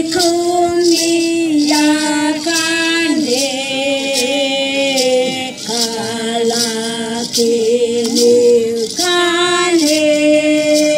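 Two women singing together into one microphone, unaccompanied, in long held notes that step between pitches every second or two. A light regular tick runs under the voices about twice a second.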